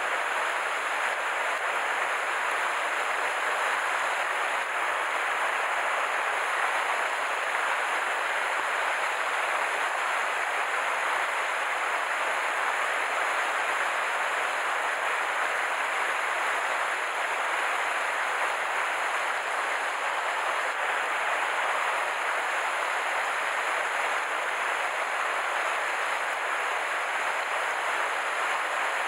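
Steady rush of a mountain stream running over a rocky riffle, even and unbroken throughout.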